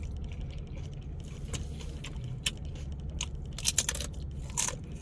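Close-up chewing and crunching of crispy fried tortilla chips: a scatter of short, crisp crackles, busiest past three and a half seconds in, over a low steady hum inside a car.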